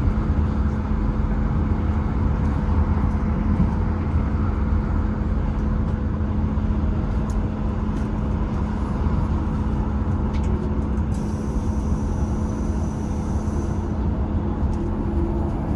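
Diesel locomotive engine running steadily, a deep rumble with a constant hum. A faint high-pitched tone joins it about eleven seconds in for around three seconds.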